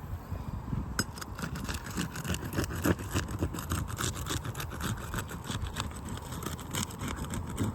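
Metal shingle-removal tool working under asphalt roof shingles, prying them up and breaking their sealant strips: a rapid, irregular run of crackling clicks and scrapes that starts about a second in.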